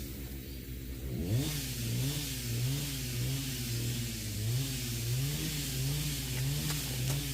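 A motor starts up and revs about a second in, then runs with its pitch rising and falling in a regular rhythm, roughly once a second.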